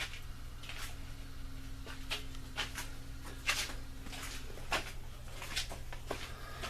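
Scattered short clicks and rustles of handling as a dust mask is fetched and put on, over a steady low hum.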